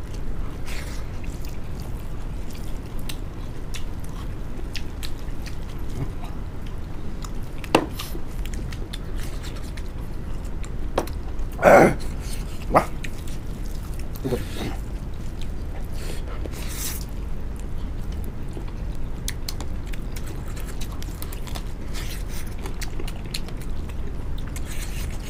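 People eating rice and duck with their hands: chewing, lip smacks and small wet clicks over a steady low hum, with a short louder vocal sound about twelve seconds in.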